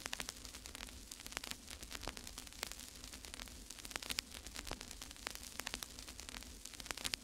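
Faint crackling static: irregular sharp clicks over a steady hiss and a low hum.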